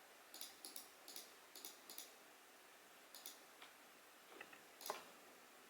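Faint computer clicks, about a dozen scattered short clicks, many in quick pairs, with a slightly louder knock near the end.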